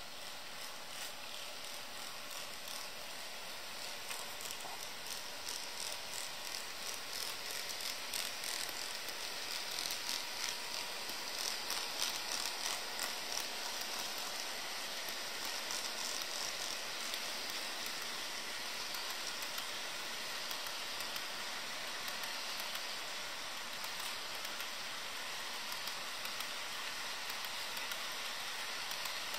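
HO scale model freight train rolling along its track: a steady hiss of the wheels on the rails with a quick run of small clicks, loudest about twelve seconds in as the locomotives pass close by.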